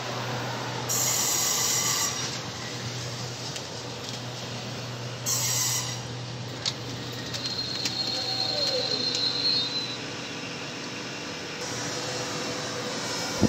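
Trenitalia Pop (Alstom Coradia Stream ETR 104) electric multiple unit moving slowly along the platform, with a steady low electric hum. There are two short bursts of hiss, about one second and five seconds in, and a brief high wheel squeal around eight to nine seconds in.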